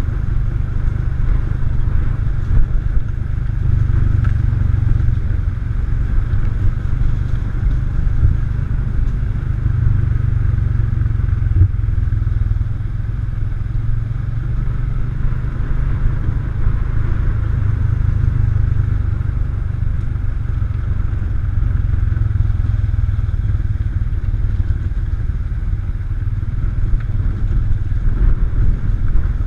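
All-terrain vehicle engine running steadily as the quad is ridden, with a few brief knocks.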